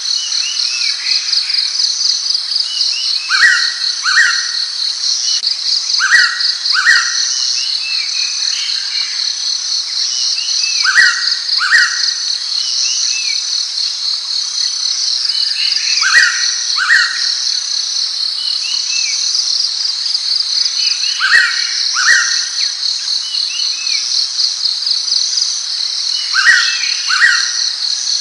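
Blue-winged pitta calling its double whistle, two short slurred notes about half a second apart, repeated about every five seconds. Under it runs a steady, fast-pulsing high insect chorus.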